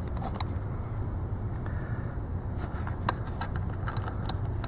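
Wheel bolts or nuts being threaded on by hand on a lawnmower's rear wheel: a few light metal clicks and scrapes over a steady low hum.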